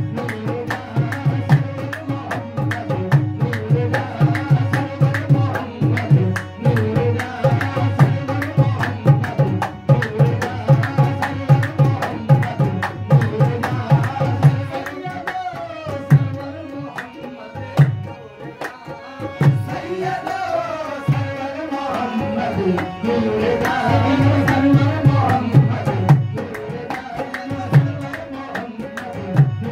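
Sufi devotional singing over a hand drum beating a quick, steady rhythm. The drumming thins out in the middle while the voices carry on with sliding, ornamented lines, then picks up again near the end.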